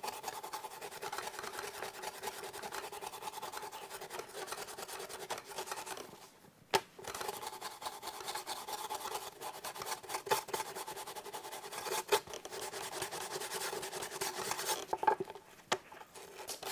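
Stiff bristle brush scrubbing a carpet piece lathered with degreaser, in rapid back-and-forth scratchy strokes. The scrubbing stops briefly about six seconds in, with a sharp tap as it starts again, and pauses once more near the end.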